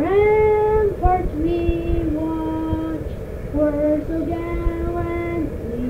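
A high voice, a woman's or a child's, singing slow, long-held notes, sliding up into the first one.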